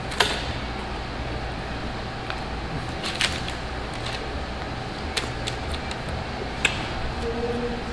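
Steady low machine hum in the room, with a few sharp clicks of a fork against a metal tray of food, spaced a second or two apart.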